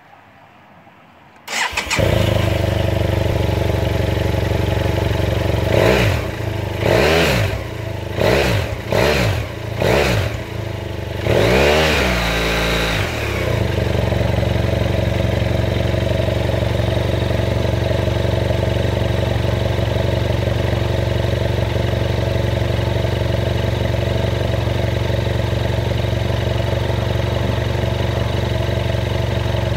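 BMW F700GS's 798 cc parallel-twin engine, breathing through its original stock exhaust, starts about a second and a half in and idles. From about six seconds in it takes a quick run of five short throttle blips, then one longer rev around twelve seconds. After that it settles back to a steady idle.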